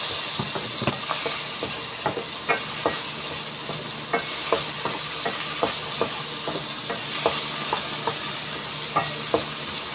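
Chopped pork sisig and long green chilies sizzling in a stainless steel pan, stirred with a wooden spatula that scrapes and knocks against the pan about once or twice a second over a steady frying hiss.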